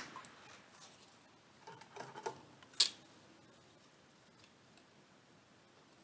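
A few light clicks and taps, the sharpest about three seconds in, then faint room tone.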